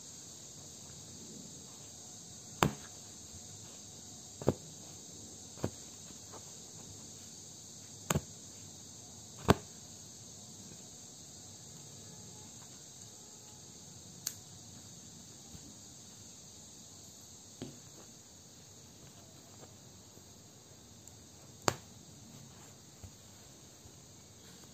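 Punch-needle embroidery work on fabric stretched in a hoop: a few sharp, irregularly spaced clicks and taps over a steady faint high hiss.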